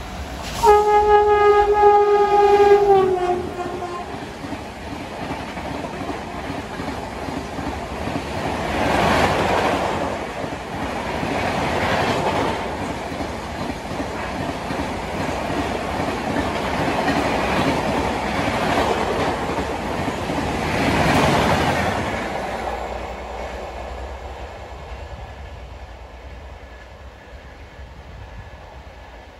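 Horn of the 12304 Poorva Express's electric locomotive, sounded for about two and a half seconds, its pitch dipping slightly as it stops. Then the express passes at speed: a steady rush of wheels on rail, swelling several times as the coaches clatter by, and fading away after about twenty seconds.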